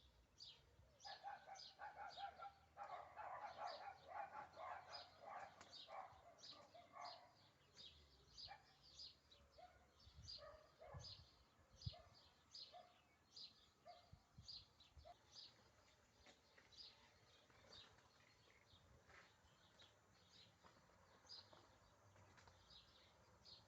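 Birds chirping faintly: a steady run of short, high chirps about twice a second. For the first several seconds a lower, chattering call sounds over them, and a soft low knock comes about halfway through.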